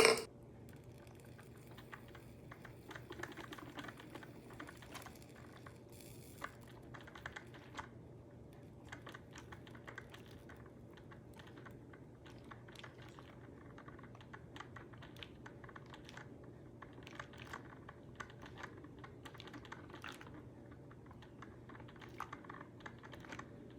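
Mr. Coffee 5-cup drip coffee maker warming up just after being switched on: faint, irregular ticking and crackling as the water heats, over a low steady hum.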